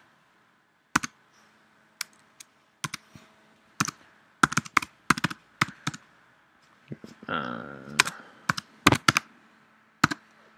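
Computer keyboard being typed on: sharp key clicks in irregular short runs. A brief hum of a voice sounds a little after seven seconds.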